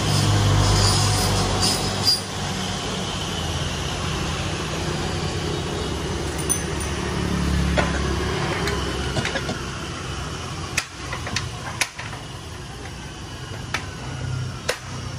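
Road traffic passing close by: a car going past near the start, then a motor scooter about halfway through, with several sharp clicks near the end.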